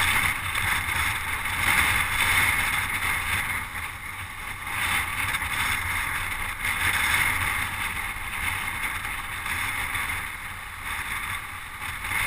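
Steady rush of wind and road noise on a camera mounted on a road bike riding in a bunch of cyclists, swelling and easing as the speed and wind change.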